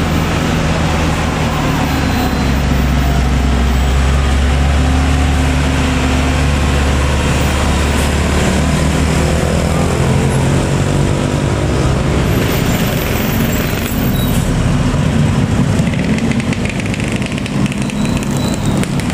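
Heavy vehicle's diesel engine running close by at low speed, a deep steady hum that is strongest in the first half and turns rougher and noisier after about eight seconds.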